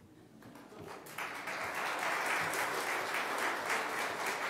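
A congregation applauding. It begins faintly about half a second in and swells to steady clapping by about a second in.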